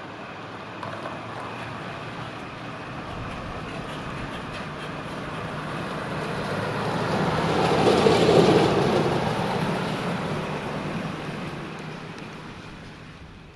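A vehicle passing by, its noise swelling steadily to a peak about eight seconds in and then fading away.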